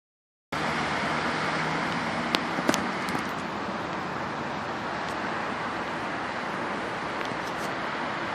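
Steady wind rushing, starting abruptly just after the beginning, with a few sharp clicks about two and a half to three seconds in.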